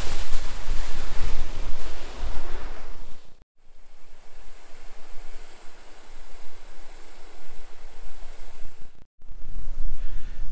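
Wind buffeting the microphone, a low rumble, over the steady rush of a small stream and waterfall. The sound cuts out sharply twice, about a third of the way in and near the end.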